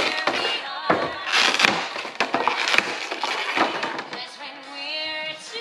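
Crinkling and rustling of packaging being handled, in quick irregular bursts.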